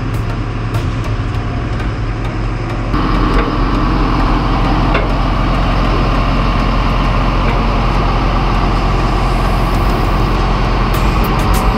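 Engine of the boat-hauling trailer's machine running steadily, getting louder about three seconds in, with scattered light clicks.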